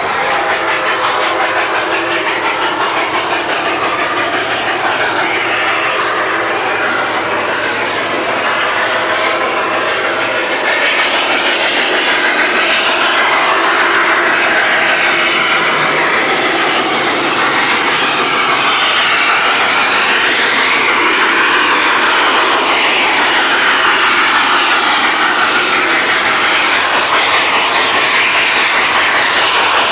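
Reading T-1 4-8-4 steam locomotive #2101 working hard, a steady roar of exhaust and running gear on old Super 8 magnetic-stripe sound, growing louder and brighter about ten seconds in.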